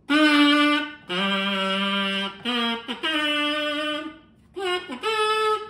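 Kazoobie electric kazoo hummed into in a short tune: a string of held notes with short gaps between them, the second note lower and the longest, and the last one the highest.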